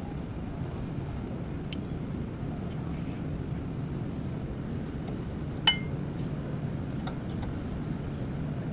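Steady low rumble of a car running, with one sharp, ringing metallic clink a little past halfway through.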